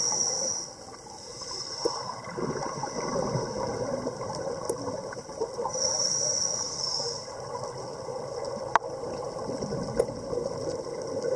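Underwater ambience of scuba breathing through a regulator: a recurring hiss and a bubbling gurgle, with a single sharp click about nine seconds in.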